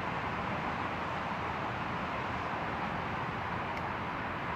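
Steady road traffic noise, an even hiss with no single vehicle passing distinctly.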